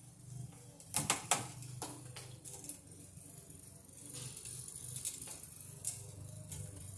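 Electrical wire being worked into the top of a metal breaker panel: scattered clicks and rattles of wire against the sheet-metal box, a quick cluster about a second in, over a steady low hum.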